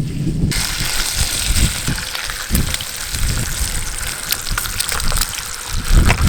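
Food sizzling and crackling in a hot cast iron pan, starting abruptly about half a second in. Wind rumbles on the microphone underneath, with a strong gust near the end.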